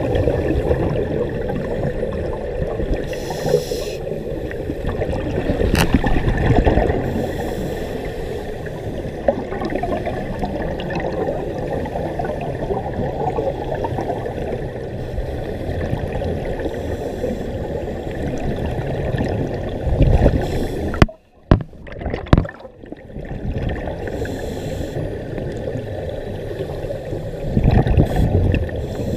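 Scuba divers' regulator exhaust bubbles gurgling and rumbling underwater, heard through a camera's waterproof housing, swelling and easing with each exhalation. The sound drops out briefly about three-quarters of the way through.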